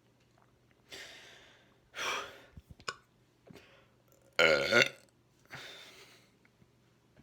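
A man's loud, deep belch about halfway through, lasting about half a second, bringing up trapped air, with softer breaths before and after it.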